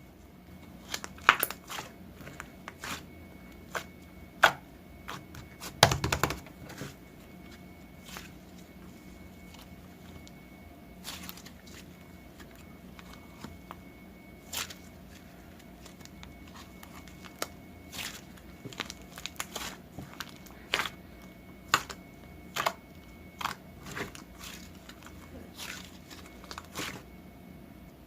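Slime being squeezed and pressed by hand, giving irregular sticky clicks and crackles, with the loudest cluster about six seconds in.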